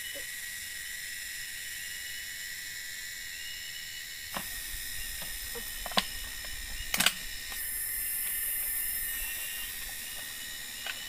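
Steady high-pitched chorus of forest insects, with a few sharp knocks and clicks about halfway through and again near the end, from things being handled on a bamboo platform.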